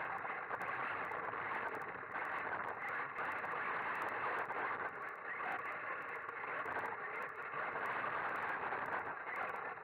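RC buggy driving over dirt and asphalt, heard through its own onboard camera: a steady rushing noise of tyres, drivetrain and wind, with no clear engine note.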